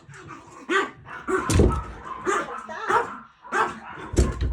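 A dog barking repeatedly, in short sharp barks about one every half second.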